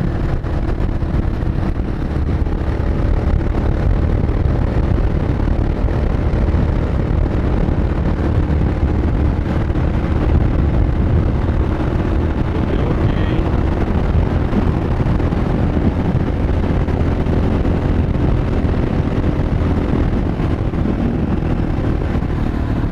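Yamaha XT 600E's single-cylinder engine running at a steady cruising speed, mixed with wind noise on the microphone.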